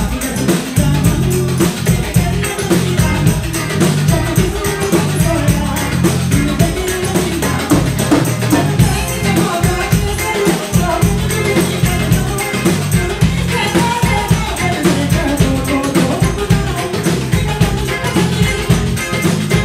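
Live bhangra music played through a PA: a woman sings into a microphone over a band with guitar and a steady beat of drums and hand percussion.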